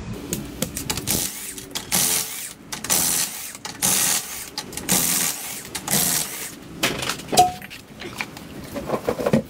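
Power tool running in short bursts, about once a second, as the wheel nuts are spun off a rear wheel. A sharp metallic clank comes about seven seconds in as the wheel comes free.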